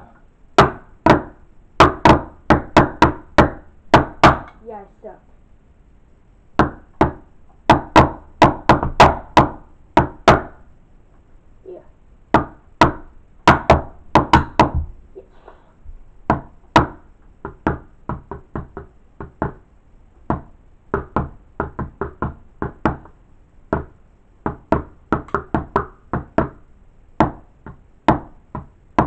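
Drumsticks playing on a drum practice pad: runs of sharp strikes in uneven bursts, with brief pauses about five and eleven seconds in.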